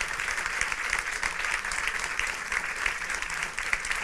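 Audience applauding: many hands clapping, a steady dense patter.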